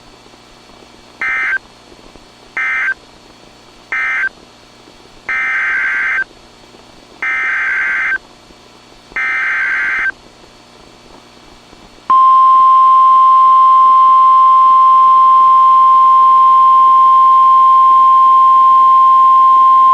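Emergency Alert System data bursts and a warning tone: three short end-of-message bursts of warbling digital screech close one alert, then three longer header bursts announce the next. About twelve seconds in, a loud steady single-pitch attention tone of around 1 kHz starts, the National Weather Service's 1050 Hz warning alarm tone.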